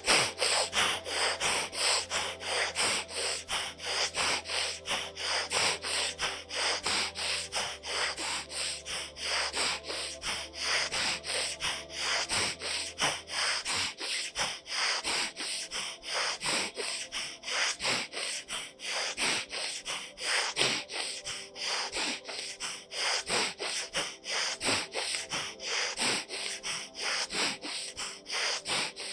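A woman's forceful, rapid breathing through the nose, in and out in an even rhythm of about two to three strokes a second, alternating nostrils: the third stage of bhastrika (bellows) pranayama. A faint low hum underneath cuts off about halfway through.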